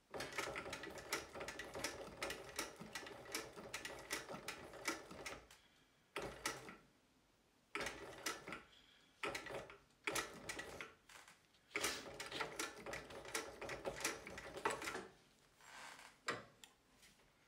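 Juki LU-563 industrial walking foot sewing machine stitching through waxed canvas, a fast, even mechanical clatter in several runs with short stops between them. It is running at a reduced speed, driven by a servo motor through a 50 mm motor pulley, and is slower than before.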